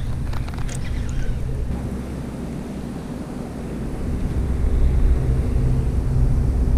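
Steady low rumble of wind buffeting the action camera's microphone, with a faint hum underneath. A few light clicks and ticks from the fishing reel come about a second in as the reel is handled.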